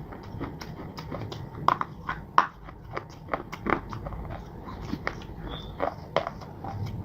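A person biting and chewing crunchy clay and slate: irregular sharp crunches, with the loudest bites a little under two seconds and about two and a half seconds in.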